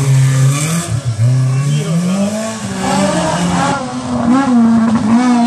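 Historic rally car engine revving hard under acceleration, its pitch climbing steadily with a brief lift about a second in. The engine note then keeps rising and falling with the throttle.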